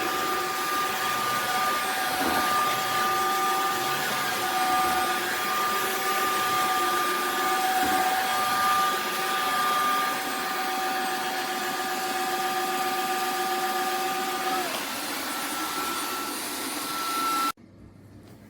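Tineco Floor One S9 Artist wet-dry floor vacuum running with a steady motor whine. About fifteen seconds in its tone shifts slightly higher, and then it cuts off suddenly near the end.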